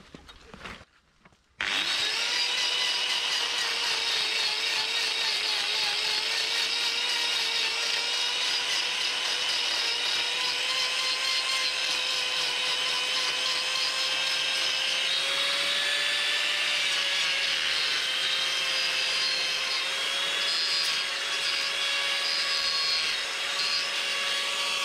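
Electric angle grinder switching on and running steadily as it grinds down a cow's hoof during hoof trimming. It starts abruptly about one and a half seconds in, with a steady whine whose pitch wavers slightly.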